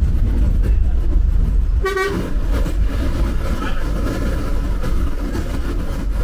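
Bus engine and road noise making a steady low rumble, with a short horn toot about two seconds in.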